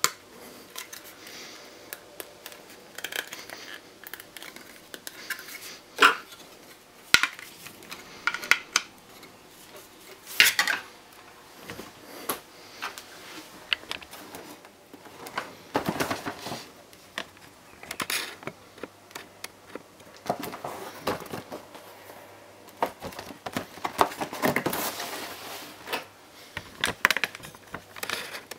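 Cardboard model-aircraft boxes and clear plastic packaging being handled: scattered sharp clicks and knocks, with longer stretches of rustling and scraping.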